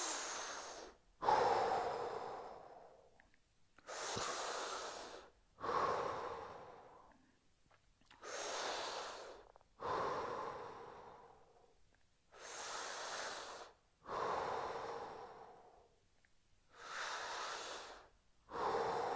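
A man breathing slowly and deeply, five breaths in all, about one every four seconds. Each breath is a short inhale followed by a longer exhale that fades away.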